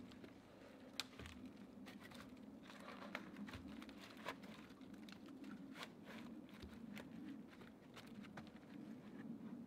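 Faint woodland ambience: scattered small ticks and crackles, several a second and at irregular times, over a low steady hum.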